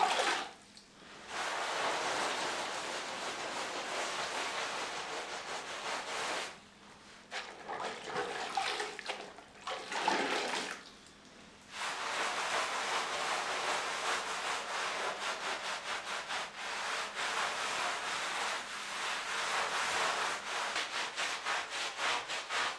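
Wet grout sponge scrubbing over a textured flagstone floor in quick back-and-forth strokes, stopping briefly a few times: wiping grout residue off the stones after grouting.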